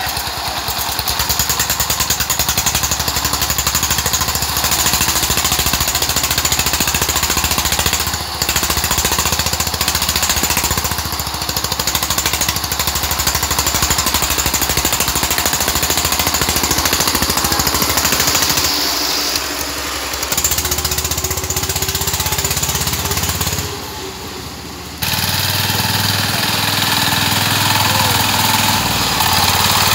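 Single-cylinder diesel engine of a two-wheel power tiller running with a fast, even chugging while it hauls a trailer loaded with bricks. The chugging drops back briefly a few times.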